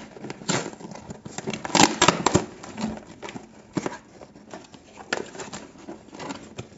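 A cardboard box and its duct tape being torn open by hand: irregular ripping and crackling, with a few louder tears about two seconds in.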